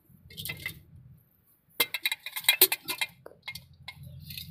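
Metal clinks and clicks from a steel bottle jack being handled and set in place under a tractor axle, with a quick run of sharp, ringing clinks about two seconds in.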